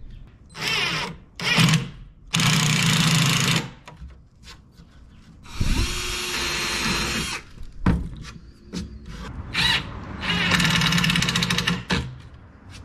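Cordless driver running screws into a long hinge on a plywood bench, in about five separate bursts of a second or two each, with small knocks and handling clicks between them.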